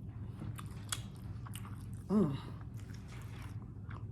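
Close-up chewing of a crunchy hard-shell taco, with irregular crisp crunches of the shell between the teeth. There is a short 'mm' of the voice about halfway through.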